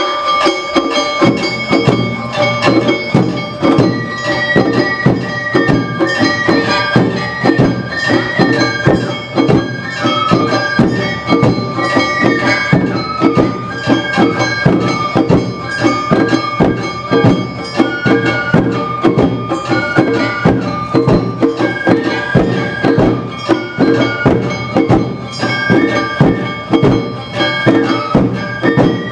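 Awa Odori narimono band playing: shrill bamboo flutes carry a stepping melody over a quick, steady beat of drums and percussion.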